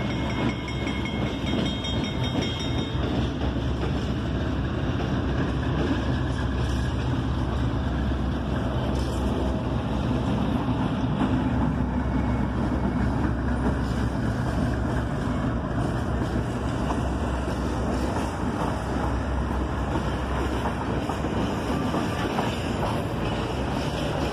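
Diesel-electric locomotive's engine rumbling steadily as it pulls slowly past, then its passenger coaches rolling along the rails. A faint high tone fades out about three seconds in.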